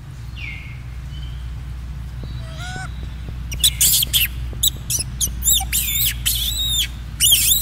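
High-pitched squeaky animal calls, faint and scattered at first. From about halfway in they come as a rapid series of loud calls, each arching up and down in pitch, over a steady low rumble.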